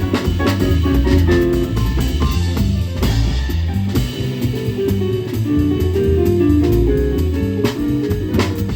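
A jazz quartet of keyboard, saxophone, bass and drum kit playing live. A moving bass line and a busy drum kit with cymbals are prominent, along with shifting pitched melody notes.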